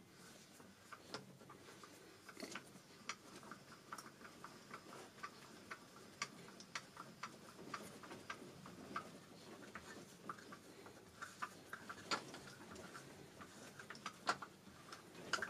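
Faint, unevenly spaced small clicks and ticks from a milling machine as its table is slowly traversed under a dial indicator during an alignment check.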